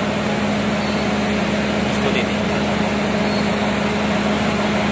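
Large diesel engine idling steadily: an even, constant hum that does not change.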